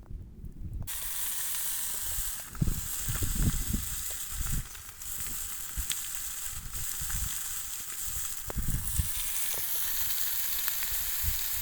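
Chicken sizzling on a hot marble stone: a steady frying hiss that starts abruptly about a second in, with scattered low knocks beneath it.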